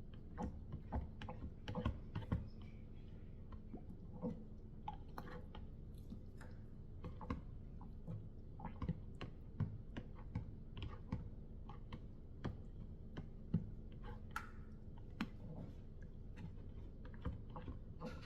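Hand stirring of thickening cold-process soap batter at medium trace in a container, the utensil giving irregular clicks and taps against the sides, with a faint steady hum underneath.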